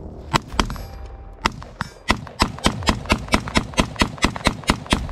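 AR-15 rifle firing semi-automatic: three spaced shots in the first second and a half, then from about two seconds in a fast, even string of about four shots a second.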